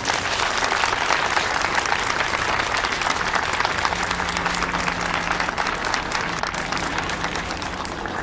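Audience applauding, the applause easing slightly toward the end.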